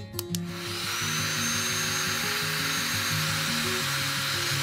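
Electric heat gun switched on with two clicks, then its fan blowing with a steady hiss and a faint high whine that rises briefly as it spins up.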